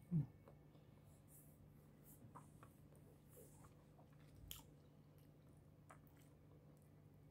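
A person quietly chewing a mouthful of mawash rice, with soft mouth clicks now and then. A short falling hum from the eater's voice comes just after the start and is the loudest sound.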